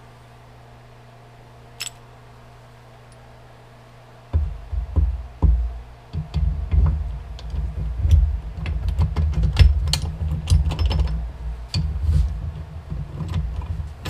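Transmission gear shafts of a two-stroke dirt-bike engine being handled and set into the aluminium crankcase half. After about four quiet seconds there are many metallic clicks and clunks of gears and shafts over a heavy, uneven low rumble.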